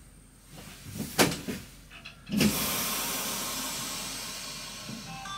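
A few sharp knocks, then about two and a half seconds in a sudden loud hiss of compressed air released from a train's pneumatic system, fading away over about three seconds.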